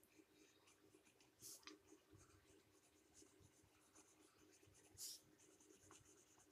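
Faint scratching of a pencil shading on paper, with two louder strokes, about a second and a half in and about five seconds in.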